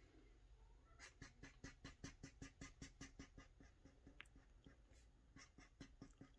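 Faint scratching of a Crayola marker on paper in quick short strokes, about five a second, as eyebrow hairs are sketched in. The strokes come in a long run, then a pause with a single tick, then a shorter run near the end.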